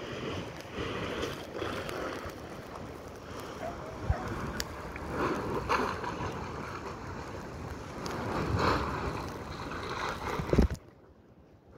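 Wind buffeting the microphone over sea waves, rising and falling in surges. A loud bump near the end, after which the sound turns much quieter.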